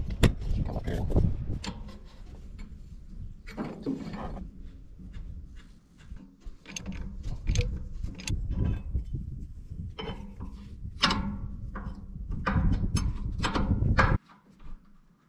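Hand tools clinking and scraping on steel clutch linkage while a clutch pin is worked out with pliers: an irregular run of metallic clicks and knocks over rumbling handling noise, stopping abruptly near the end.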